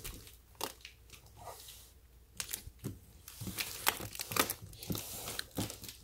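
Hands rubbing and scuffing on a large cardboard box as it is turned around, a string of irregular rustles and scrapes that grow busier about three seconds in.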